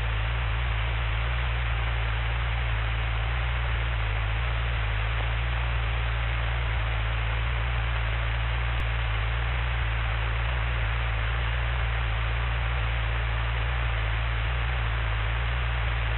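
Steady drone of a Cessna 172's engine and propeller in flight, heard through the cockpit intercom as a low hum under an even hiss of static.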